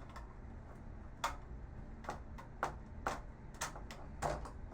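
Irregular small clicks and taps, about one or two a second, of a screwdriver and screws being worked out of a monitor's circuit board.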